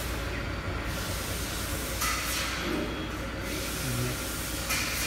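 Factory workshop noise: a steady low hum under a wash of hissing that swells about two seconds in and again near the end.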